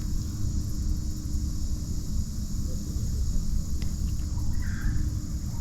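Steady high-pitched chorus of insects such as crickets, over a continuous low rumble.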